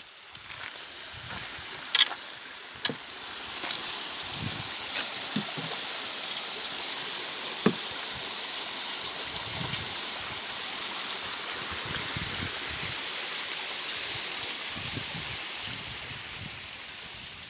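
A stream running steadily over rocks, with a few short, sharp knocks.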